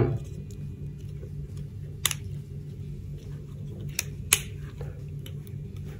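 A few sharp plastic clicks, one about two seconds in and two close together near four seconds, as the gorilla tripod's ball-jointed legs are bent into shape. A steady low hum runs underneath.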